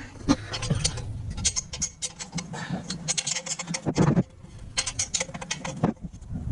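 Irregular metallic clicks and scrapes of hand tools working on the exhaust pipe as it is bolted to the turbo, with a louder knock about four seconds in.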